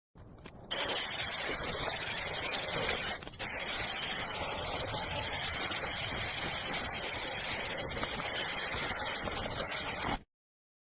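SOUSKY 6-inch cordless mini chainsaw running while cutting overhanging tree branches: a steady, even noise with a brief break about three seconds in, stopping abruptly near the end.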